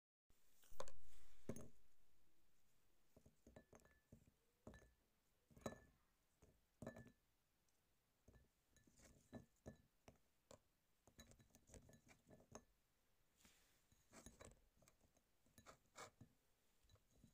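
Pieces of cut fruit being dropped into a glass baking dish: soft, irregular taps and clinks against the glass. The loudest is a sharp clink about a second in that rings and fades over about a second.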